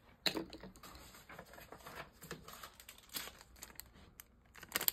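Small clear plastic bag crinkling and rustling as it is picked up and handled. The crinkling dies down about three and a half seconds in, and a couple of sharp clicks follow near the end.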